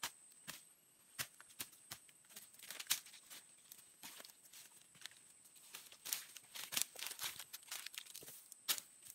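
Irregular sharp chops of a bladed hand tool striking into soil and roots, with dry brush and twigs crackling, while a cu li fern rhizome is being dug out. The strikes come in two spells, with a quieter stretch in the middle.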